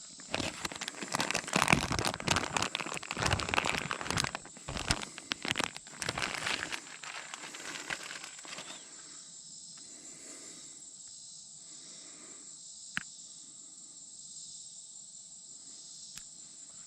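Close crinkling and rustling handling noise for about seven seconds, then it dies down to a faint steady high hiss with a single sharp click later on.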